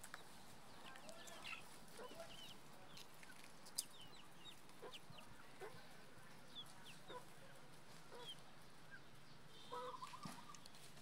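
Chickens clucking faintly, with scattered short high chirps and a louder hen call near the end. A single sharp click about four seconds in.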